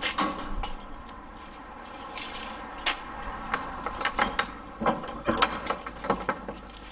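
Keys jangling and metal clinking as a padlock is unlocked from a door bolt, in a string of irregular sharp clicks.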